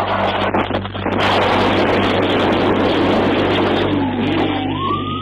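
Police cruiser crashing, heard from inside its back seat: a loud rushing noise full of knocks and rattles over a steady low hum. Near the end a rising tone comes in and holds.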